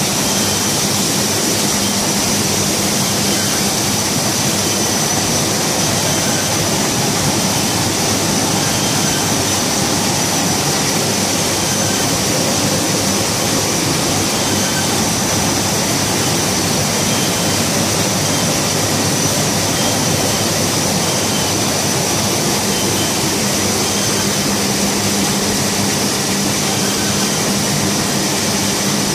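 Codimag Viva 340 label printing press running steadily at speed: an even mechanical noise with a thin, steady high whine and a low hum that do not change.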